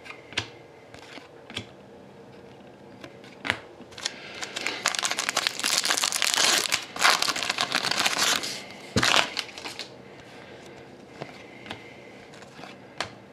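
Crinkling and crackling of a foil trading-card pack wrapper being torn open and crumpled for a few seconds, with a few light clicks before it and a sharp knock near the end of the crinkling.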